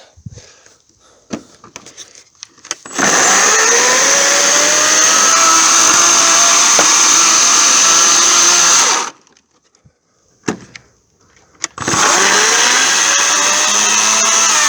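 EGO 56-volt 14-inch cordless electric chainsaw cutting through wood, with a steady high motor-and-chain whine. It runs for about six seconds, stops abruptly, and starts up again a few seconds later for a second run.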